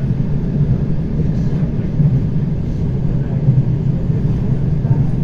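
ER9T electric multiple unit running along the line, heard from inside the carriage: a steady low rumble of wheels and running gear on the rails.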